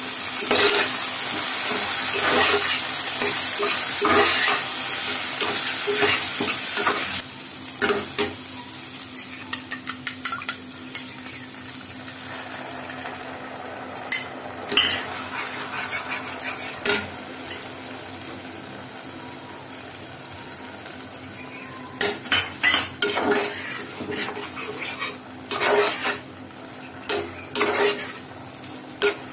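Spatula stirring and scraping paneer cubes in sauce in a sizzling nonstick frying pan, with knocks of the spatula against the pan. The sizzle is loud for the first several seconds, then dies down; the scraping and knocking come back thick near the end.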